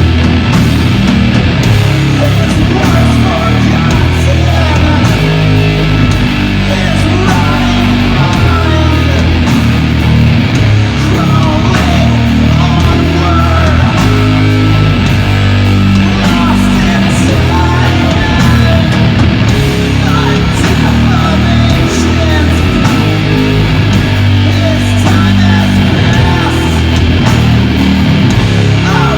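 Doom metal band playing live, loud throughout: distorted electric guitars and bass holding long low notes, with drums and cymbals.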